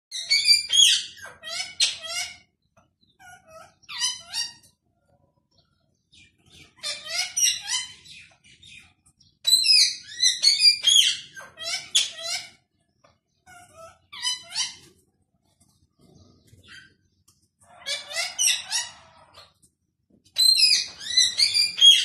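Young cockatiel chattering in quick, high chirps and warbles, in bursts of one to three seconds separated by short pauses.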